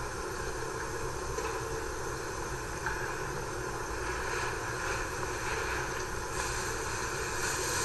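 Steady background noise: an even hum and hiss with no distinct events.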